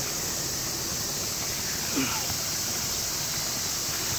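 Steady rush of water pouring over a low ledge in a pond. A brief falling sound comes about two seconds in.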